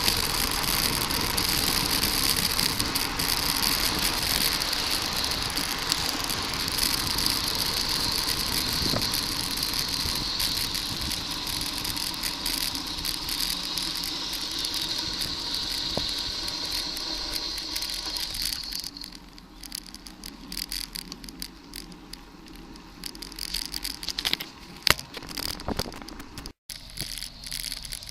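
Riding a bicycle on the road: steady wind and road noise, which drops away about two-thirds of the way through, leaving a quieter stretch with scattered clicks and rattles.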